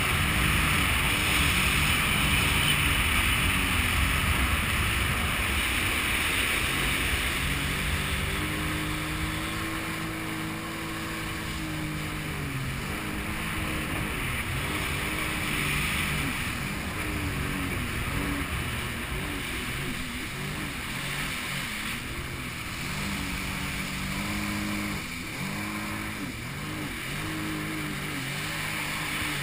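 Jet ski engine running on open water, with a loud rush of wind and water at first. About eight seconds in the rush eases and the engine's note comes through, rising and falling in pitch as the craft carves across the lake.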